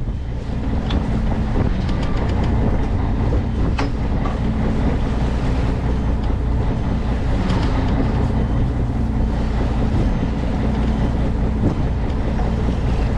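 Fishing boat's engine running steadily at low speed, a constant low hum, with wind buffeting the microphone and a few faint clicks.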